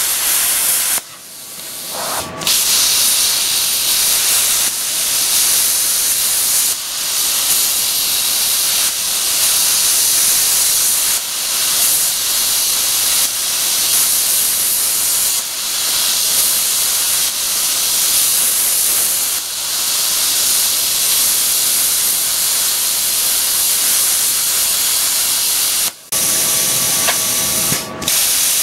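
Hypertherm Powermax45 plasma cutter arc hissing steadily as it gouges the heads off steel frame rivets at about 30 amps in expanded metal mode. The hiss breaks off briefly about a second in and twice near the end.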